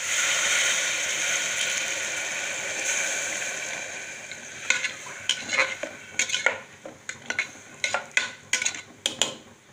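Water poured into hot oil and beetroot–coconut paste in a pressure cooker pot, sizzling loudly at first and dying away over the first four seconds or so. Then a spoon stirs the curry, scraping and knocking against the metal pot in a string of irregular clicks.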